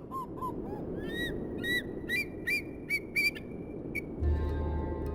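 A bird giving a series of short honking calls, each note rising and falling in pitch, over a steady background hiss. Music with sustained tones comes in about four seconds in.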